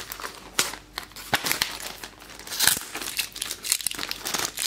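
Foil minifigure bag crinkling and crackling as hands handle it and work it open: an irregular run of sharp crackles.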